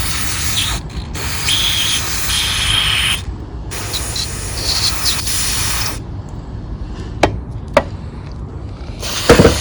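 Aerosol degreaser spraying in hissing bursts, three long ones over the first six seconds. Two sharp clicks follow, then another burst starts near the end.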